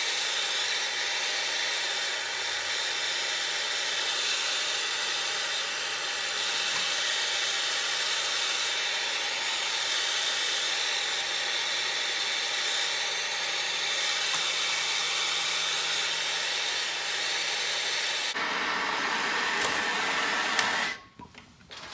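Gas soldering torch burning with a steady hiss while heating a copper pipe fitting to sweat a joint. The hiss shifts in tone a few seconds before the end, then cuts off suddenly as the torch is shut off, leaving a few small clicks.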